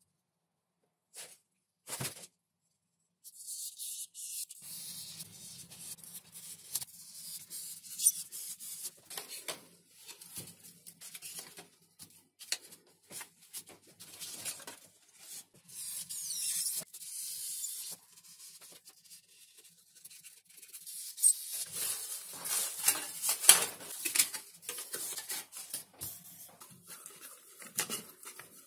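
Close-up crafting sounds of thin XPS foam sheet being worked by hand: a utility knife scoring along paper templates, then scratching and rustling as the paper templates and their tape are lifted off the foam. Near the end come louder rubbing and crackling as a foam piece is pressed and rolled over a plastic pipe to curve it.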